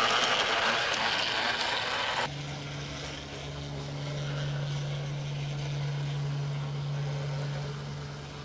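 A model streetcar running on a garden railway, giving a steady rattling, rushing noise of wheels and motor that cuts off suddenly about two seconds in. A steady low hum follows.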